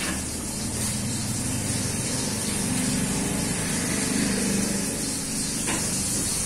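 Steady background hiss with a low rumble, and a few faint clicks.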